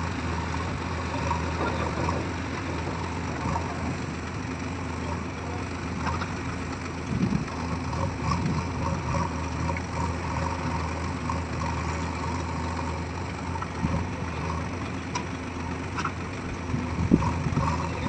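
Diesel engines of a JCB 3DX backhoe loader and a tractor running steadily while soil is loaded into the tractor's trolley, with a few short louder knocks, the loudest near the end.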